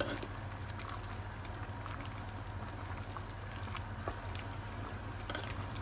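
Spinach ribbon pasta simmering in a pot, a steady bubbling hiss, with a few light knocks of a wooden spoon as it is stirred.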